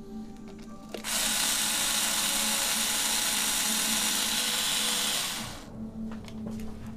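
A power drill spinning a socket to run out an oil pan bolt. It starts about a second in, runs steadily for about four and a half seconds and stops near the end.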